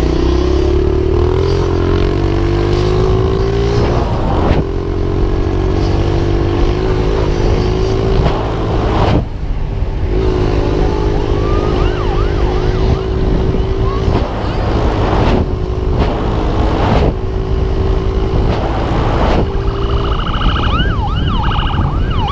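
Dirt bike engine running at high revs, climbing in pitch over the first few seconds and then holding steady with a few brief dips. A police siren wails up and down faintly about halfway through and loudly near the end.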